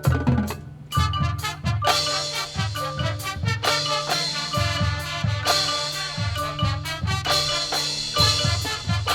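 Marching band playing: brass and woodwinds with marimba and other mallet percussion over a drumline's regular bass drum hits. The music breaks off briefly just after the start and comes back in about a second later, fuller from about two seconds in.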